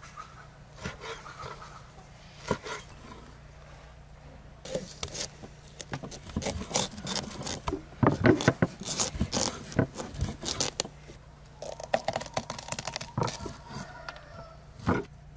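A large knife cutting into a whole pumpkin on a wooden cutting board: a few separate knocks, then a long run of crunching and scraping as the blade goes through the hard rind, loudest in the middle, with one more knock near the end.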